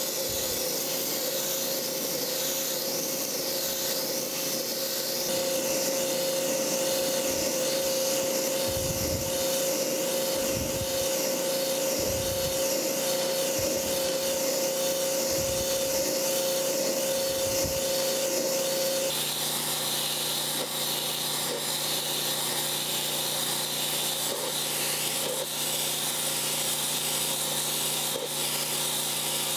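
Pressure washer with an Ultimate Washer sandblasting attachment wet-blasting rusted cast iron: a steady hiss of the water-and-sand jet striking the metal. A steady whine runs under it and drops away about two-thirds of the way in.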